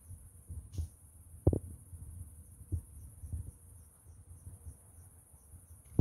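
Crickets chirring steadily at a high pitch, with a second chirp just below it pulsing about five times a second. A few short dull knocks cut through, the loudest about a second and a half in.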